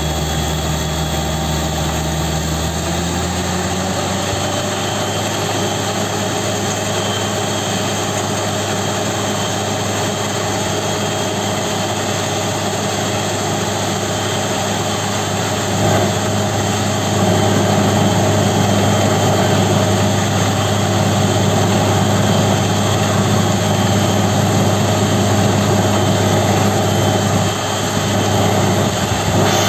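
Truck-mounted borewell drilling rig's engine running hard and steadily while drilling, its pitch stepping up about three seconds in. It grows louder about halfway through as water and cuttings blow out of the hole.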